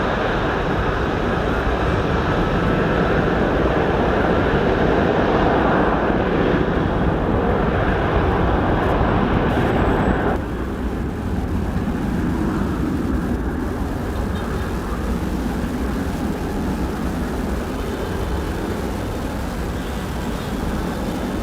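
Airliner's engines at takeoff power during the departure roll and climb: a loud, steady rumbling roar. About halfway through it drops suddenly in level and loses its upper hiss.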